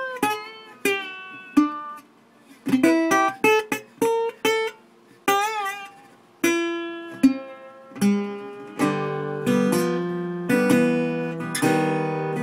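Solo acoustic guitar music: single plucked notes and short phrases with pauses between them, then steady strummed chords from about nine seconds in.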